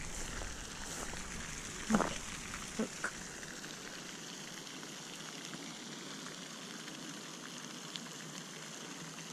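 Steady splashing hiss of a pond's aerating spray fountain, with a couple of brief handling noises about two and three seconds in.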